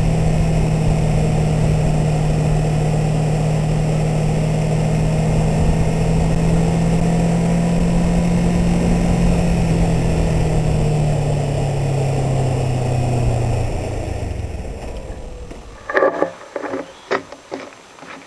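Kawasaki Ninja 650R's parallel-twin engine, breathing through a quiet custom 'stealth' exhaust, running at a steady cruise heard from the rider's seat under a rush of wind noise. About eleven to fourteen seconds in, its note sags and fades away, and near the end come a handful of sharp knocks and clicks.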